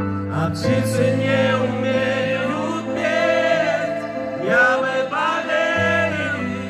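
Live pop ballad: a man singing a long, sliding vocal line through a microphone over sustained keyboard chords and a low bass note.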